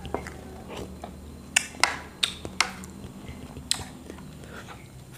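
Close-up eating sounds as a man takes a spoonful of soft chocolate pudding with vanilla custard and eats it: a scatter of short, sharp mouth clicks and smacks, with the metal spoon touching the plate.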